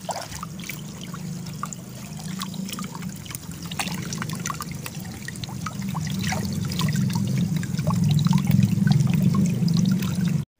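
Water trickling and dribbling in a shallow fish pond, with scattered small splashes. It grows louder in the second half and cuts off suddenly near the end.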